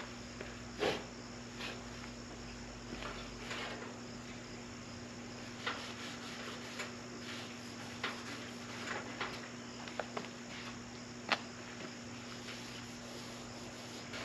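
Hand wiping and handling of a loose steel car fender: scattered soft knocks, taps and rubbing as a rag is worked over the panel, over a steady background hum.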